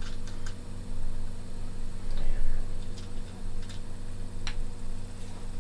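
Scattered light clicks and ticks of small metal airgun parts being handled and screwed together by hand, a few close together near the start and single ones later, over a steady low hum.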